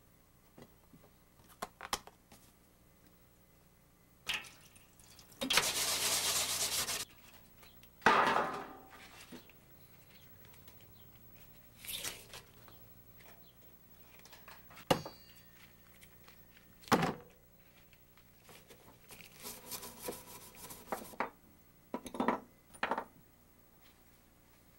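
Sheet-metal burner tray of a Coleman propane stove being handled and scrubbed by hand: scattered knocks and clatter with stretches of rubbing. A steady hiss lasts about a second and a half a quarter of the way in, and the loudest event is a sharp knock about a third of the way in with a short ring after it.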